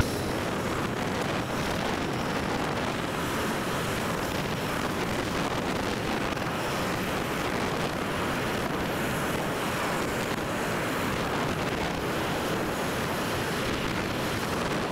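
Steady rushing wind and road noise from a vehicle on the move. No engine note or other distinct sound stands out.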